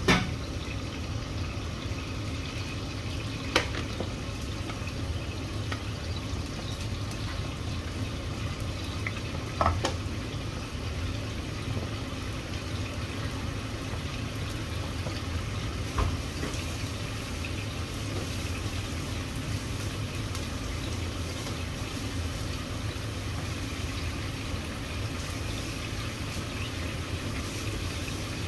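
Sauce simmering in a pan with a steady sizzle and bubbling, thickened with cornstarch. A utensil knocks against the pan three times.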